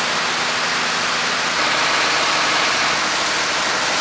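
Longtail boat under way, its engine running at a steady drone beneath a loud, even rush of wind and spray as the hull cuts through the lake water.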